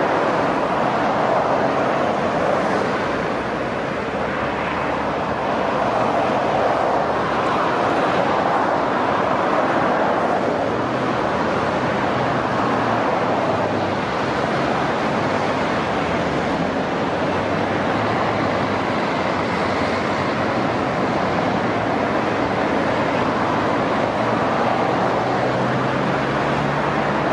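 A steady rushing noise with no clear events, with a faint low hum that comes and goes in the second half.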